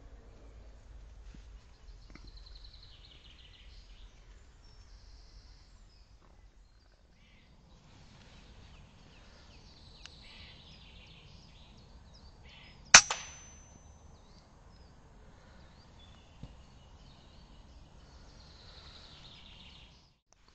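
A single air-rifle shot, a sharp crack followed by a brief high ring. Faint bird calls sound in the background.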